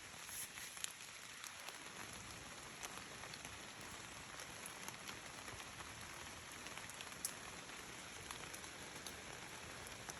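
Light rain falling, an even faint hiss with scattered single drops ticking close by at irregular moments.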